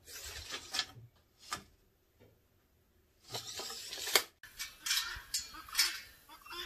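Scattered light scrapes, clicks and knocks of hand work at a stopped miter saw. The sharpest click comes about four seconds in.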